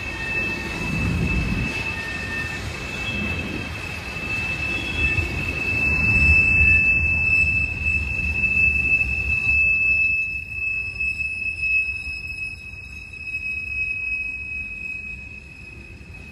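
Train rolling around a sharp curve, its wheel flanges squealing in one steady high pitch over the low rumble of the cars. The rumble drops off in the second half while the squeal carries on.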